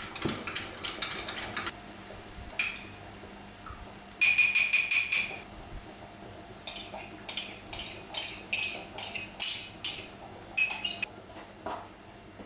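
A spoon clinking and scraping against a mug while gravy is stirred and scraped out, in quick runs of sharp, ringing clinks: a dense burst about four seconds in, then a string of separate clinks.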